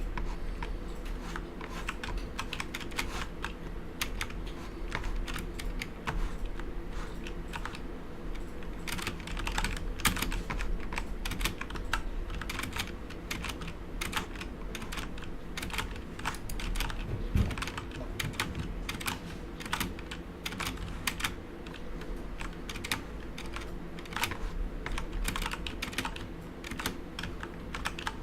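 Continuous typing on a Corsair K70 mechanical keyboard with Cherry MX Brown switches, its keycaps damped by 40A-R rubber O-rings: a steady stream of key clicks and thocks, over a low steady hum.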